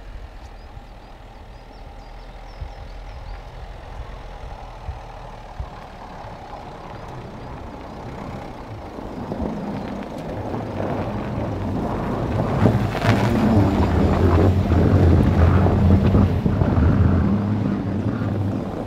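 Peugeot 3008 SUV driving on a snowy road. It is fairly quiet at first, then from about nine seconds the car's engine grows louder with a steady low hum mixed with tyre and wind noise as the car passes close by.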